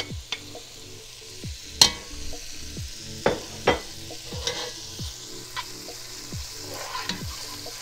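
Crushed ginger and garlic frying with chopped onions in hot oil in a pot, sizzling steadily, while a spatula stirs and scrapes through it with several sharp knocks against the pot.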